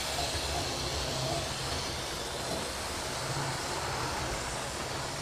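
Analogue model trains running on the layout close by: a steady whir of their small electric motors with the wheels running over the rails.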